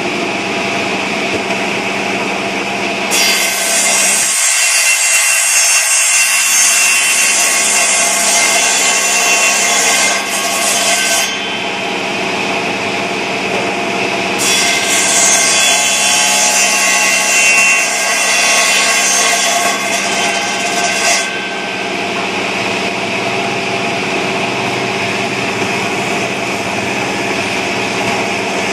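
A woodworking power tool running steadily, cutting into wood twice for several seconds each time, with a harsh hiss over the motor hum during each cut.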